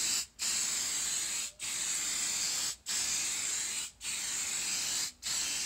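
Aerosol can of Aqua Net hairspray hissing in back-to-back sprays about a second long. Each spray is cut by a brief gap as the nozzle is released between passes, five times in all.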